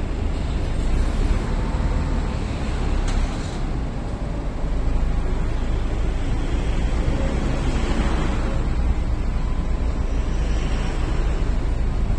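Steady outdoor road-traffic and vehicle noise with a strong low rumble. No siren is sounding.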